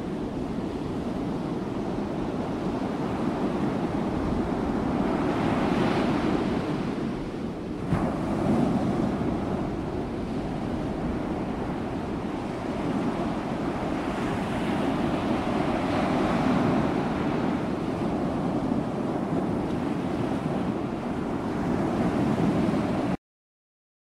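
Strong gusting wind buffeting the microphone, mixed with the rush of waterfall spray, in a wind strong enough to blow the falling water back upward. The gusts swell and ease, with a brief knock about eight seconds in, and the sound cuts off abruptly near the end.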